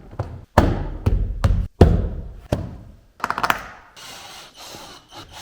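Sharp knocks and thuds on a car door, about five in the first three seconds, then a quick run of small clicks about three seconds in: hands working the door's trim panel and latch parts.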